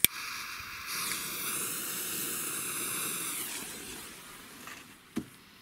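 A sharp click, then the fuse of a Funke Super Ball 1 firecracker hissing steadily as it burns for about four seconds. The hiss fades as the firecracker is thrown, and a short knock follows about five seconds in.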